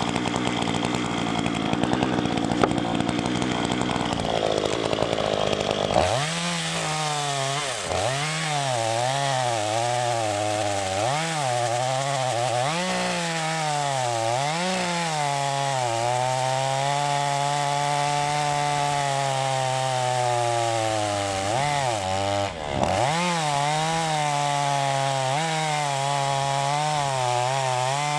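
Chainsaw ripping a forked oak log lengthwise along the grain. For the first few seconds it runs flat out in a dense noisy whine; after that the engine labours under the cut, its pitch rising and falling, with a brief drop about 22 seconds in.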